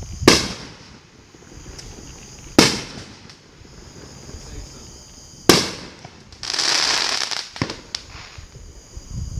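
Fireworks going off: three sharp bangs a couple of seconds apart, each trailing off in an echo, then a hissing, crackling burst lasting about a second.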